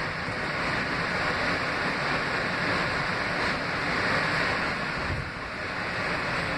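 Steady rumble and rush of an R160A subway car's wheels running on the rails, heard from inside the car, with a slight dip in level about five seconds in.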